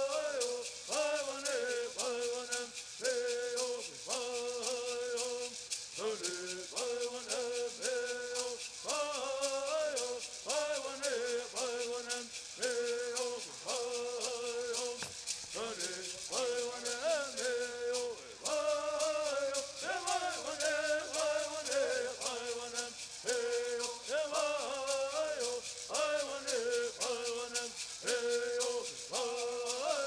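Men's voices singing a Southern California Bird Song together in repeated phrases, accompanied by continuous shaking of gourd rattles.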